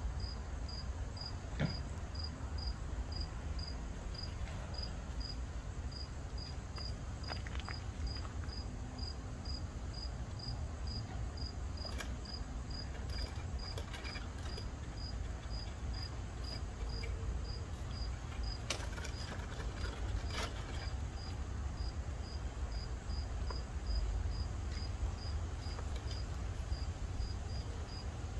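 A cricket chirping steadily: short, high, evenly spaced chirps all at one pitch, over a constant low rumble, with a few faint clicks.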